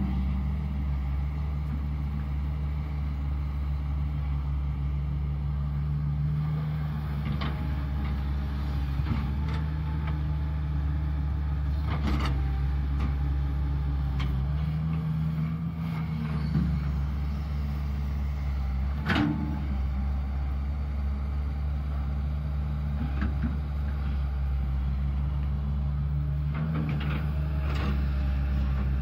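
Caterpillar 320 hydraulic excavator's diesel engine running steadily as it digs, swings and dumps mud, the engine note swelling for a few seconds at a time under hydraulic load. A few sharp knocks stand out, the loudest about 19 seconds in.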